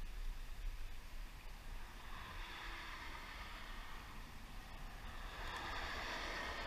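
Flowing creek water rushing, an even hiss that swells a little louder in the second half.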